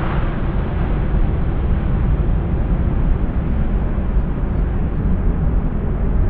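Airbus A380's four Rolls-Royce Trent 900 jet engines at take-off power as the airliner climbs away: a loud, deep, steady rumble whose upper hiss slowly fades.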